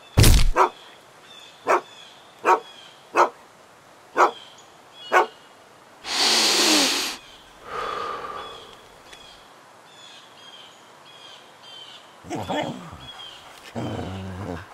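A thud at the start, then a dog barking: five short sharp barks about a second apart, a longer, louder bark with a falling pitch about six seconds in, and growling near the end, over faint birdsong.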